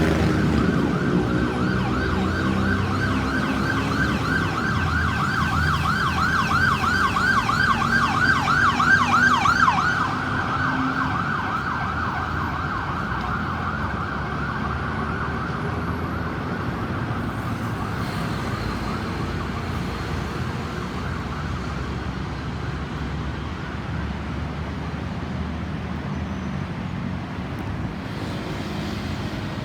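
Ambulance siren in a fast yelp, about five sweeps a second, loudest as it passes, then fading out about ten seconds in. After that only steady engine and road traffic noise remains.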